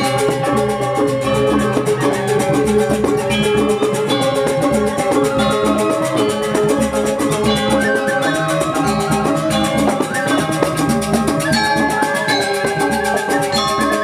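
Balinese gamelan Semar Pegulingan music: bronze metallophones ring out a dense, quick-moving melody in many layers, with drum strokes beneath.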